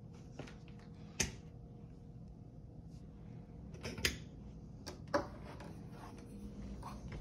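Three sharp clicks, about a second in, about four seconds in and about five seconds in, with a few fainter taps between them, over a low steady hum.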